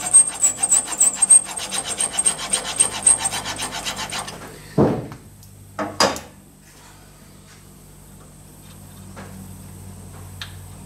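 Hand smooth file stroked quickly and rhythmically over a small metal rod on the rollers of a roller filing rest, mostly rubbing now rather than cutting, because the flat has reached the depth the rollers allow. The filing stops about four seconds in, and two sharp knocks follow.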